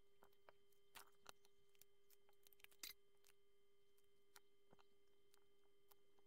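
Faint, scattered clicks of plastic Lego bricks being handled and pressed together, the loudest about three seconds in, over a faint steady hum.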